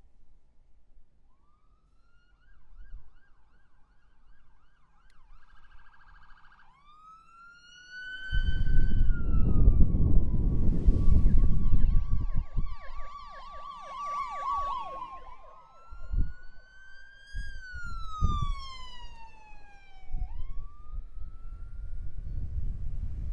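Emergency vehicle siren going past, rising and falling in long wails with a fast warbling yelp in the middle. A loud rushing of road noise comes in about eight seconds in and dies away some eight seconds later.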